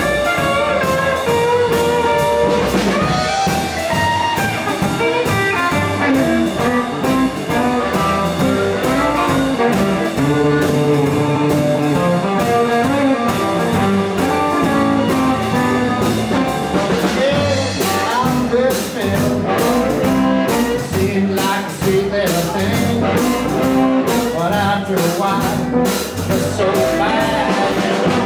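Live 1950s-style blues band playing: amplified harmonica lead over electric guitar, upright double bass and drums. The drum hits get sharper and busier about two-thirds of the way in.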